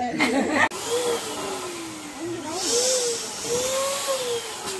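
A small electric motor blowing air with a steady hiss, its whine slowly wavering up and down in pitch, beginning after an abrupt cut about half a second in; a brief louder rush of hiss comes around the middle.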